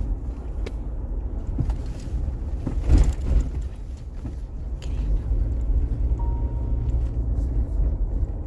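Steady low road and engine rumble inside a moving car, with one louder bump about three seconds in.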